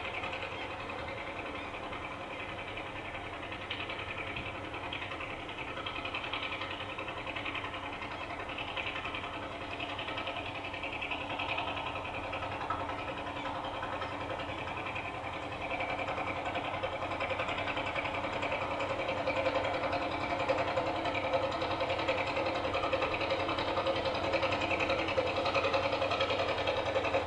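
Field recording of a small passenger ferry's engine chugging, gradually getting louder as the boat moves closer, heard played back over a loudspeaker in a room.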